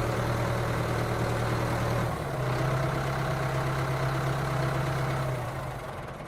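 A motor running steadily with a low, even hum. It dips briefly about two seconds in and fades out near the end.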